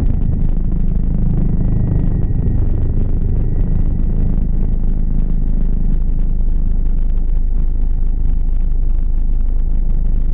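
Helicopter in flight, heard from inside the cockpit: a steady, loud noise of rotor and turbine engine.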